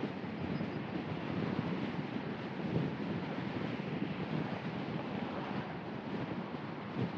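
Steady low road and wind noise from a car driving along at city speed, with no separate sounds standing out.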